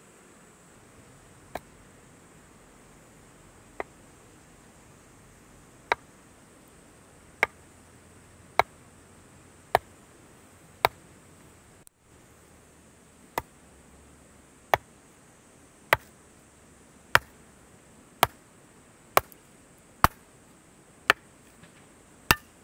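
Hatchet splitting a piece of firewood on a wooden chopping block: a series of sharp chopping strikes, two softer ones first, then roughly one a second and louder.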